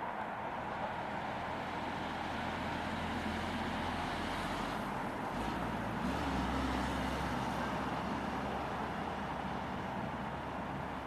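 Steady low vehicle rumble with a faint steady hum, swelling a little about five seconds in.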